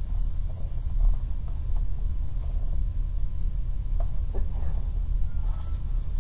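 A steady low rumble, with a few faint rustles and crinkles of gift wrapping paper being handled in the second half.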